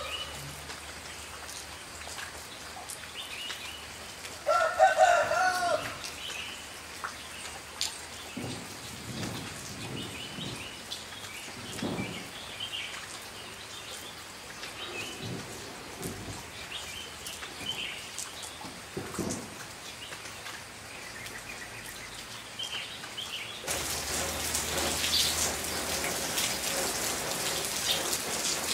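Steady tropical rain falling, with a rooster crowing once about five seconds in and chickens clucking low now and then through the middle. Small birds chirp faintly in the background, and the rain gets louder near the end.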